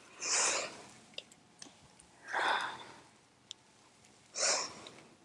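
A woman's audible breaths: three short rushes of breath about two seconds apart, in time with a twisting stretch, with a few faint ticks between them.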